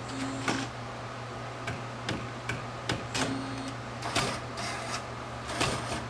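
AnaJet direct-to-garment inkjet printer's print head carriage moving out of its maintenance station: a run of irregular mechanical clicks and knocks, loudest about half a second in and about four seconds in, with two short low motor tones over a steady low hum.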